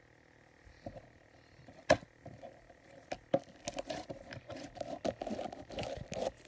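Sticky slime being squished and worked by hand: irregular wet clicks and pops, sparse at first, with one sharp click about two seconds in, then a dense crackling run in the second half.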